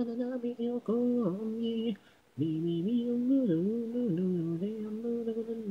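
Unaccompanied female singing, an isolated a cappella vocal track: held and gliding sung notes with no instruments, broken by a short pause about two seconds in.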